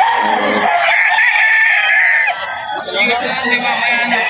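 Gamefowl roosters crowing over one another, with clucking among them.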